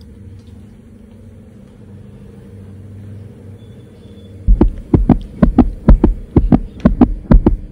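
A low steady hum, then a little past halfway a fast, regular run of loud thumps, about four a second.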